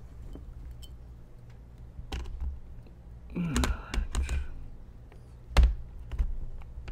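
Hard plastic clicks, scrapes and knocks as a Microsoft Surface Book tablet in a rugged UAG case is forced down onto its keyboard base dock. There is a cluster of scraping and clicking a little past halfway and one sharp knock, the loudest sound, about five and a half seconds in.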